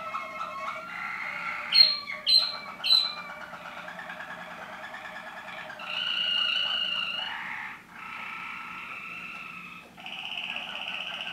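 Waterslager (Malinois) song canary singing a continuous run of trilled tours. Three sharp, loud notes come about two seconds in, and a louder tour runs from about six to seven and a half seconds.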